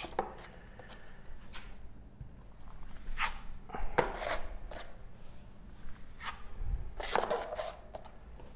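Wide drywall taping knife scraping and loading joint compound against the edge of a metal mud pan: a handful of short scrapes, the strongest about three to four seconds in and again about seven seconds in.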